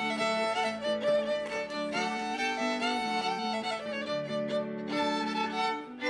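Fiddle playing a melody of held, changing notes over a sustained low note.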